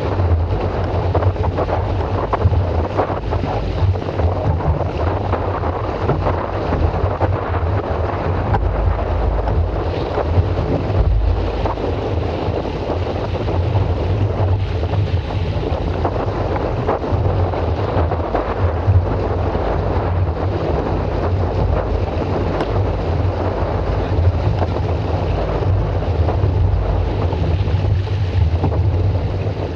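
Wind buffeting the microphone on a boat under way, with water rushing past the hull: a steady, loud rumbling hiss.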